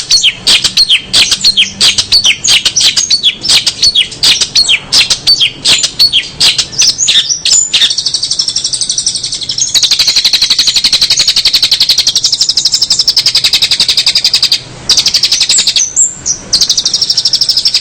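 Songbird singing loudly close to the microphone: a quick series of sharp high chirps, then from about eight seconds in a fast continuous high trill, broken off briefly twice near the end.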